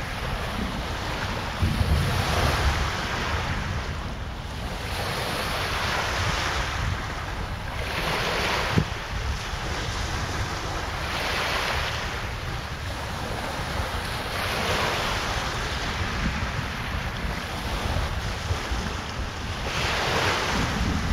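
Lake Michigan waves washing onto the shore, the surf swelling and falling away every few seconds, with wind buffeting the microphone.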